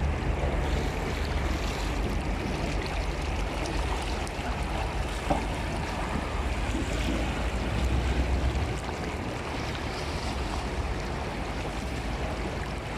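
Steady rush of a river current, with wind rumbling on the microphone.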